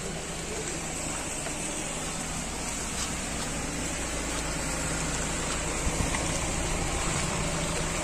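Steady rain falling, with a Piaggio Ape City auto-rickshaw's engine idling underneath.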